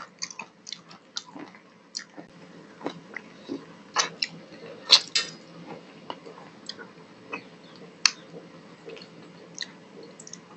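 Chewing and lip-smacking picked up close on a clip-on mic: scattered sharp, wet mouth clicks, busiest in the first second, with the two loudest about five and eight seconds in.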